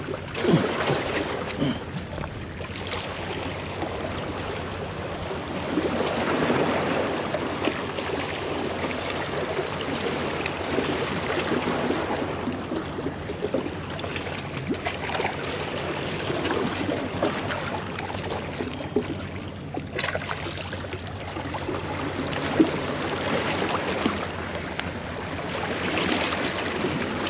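Small waves washing and sloshing against the boulders of a rock breakwater, swelling and easing every few seconds.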